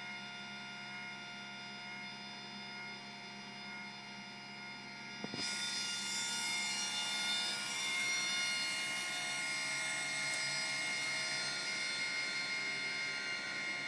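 Steady electrical hum with several fixed tones, then about five seconds in a click and a small electric gear motor starts and runs with a steady whir. This is the filament spooler's motor switched on by the laser-and-photoresistor sensor to wind up the slack loop of extruded filament.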